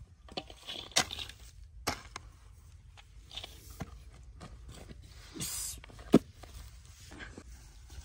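A spade digging and scraping dry, clumpy soil into a metal pan, with several sharp knocks as the blade strikes. The loudest knock comes about six seconds in.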